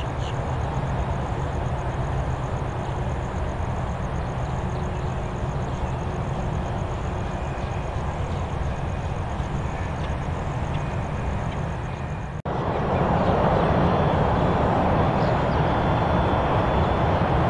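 Steady jet engine noise from a DHL Boeing 757 freighter rolling along the runway. After an abrupt cut about twelve seconds in, a louder, steady jet engine noise from a Boeing 767 freighter on final approach.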